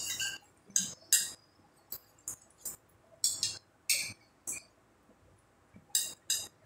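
Cutlery clinking against plates at a meal: a string of short, sharp, irregular clinks, two or three a second, with a quiet gap of about a second near the end.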